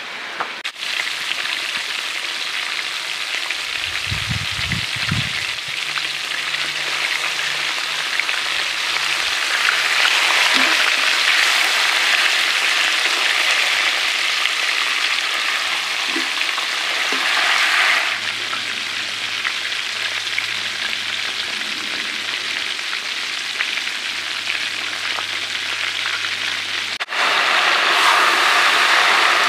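Whole country chickens and shallots frying in hot oil in an iron kadai: a steady sizzle that grows louder for a stretch in the middle and again near the end.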